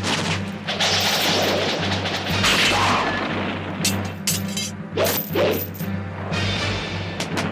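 Dramatic background music with a steady low drone, overlaid by a rapid series of sharp hits, whooshes and crashes from a staged kung fu fight.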